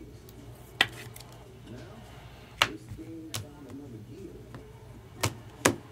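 Trading cards being handled and set down on a table: four sharp clicks, the last two close together near the end, over a low steady hum and a faint voice.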